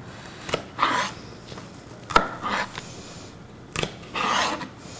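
Kitchen knife cutting the root ends off scallions on a plastic cutting board: three sharp knocks of the blade on the board about a second and a half apart, the middle one loudest, with softer scraping and rustling between them.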